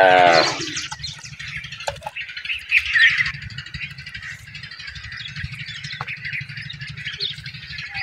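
Caged ringneck parakeets chirping and chattering, with short high chirps scattered throughout. A loud drawn-out call ends about half a second in.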